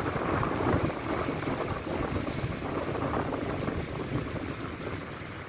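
Wind buffeting the microphone, a rough rushing noise that slowly fades.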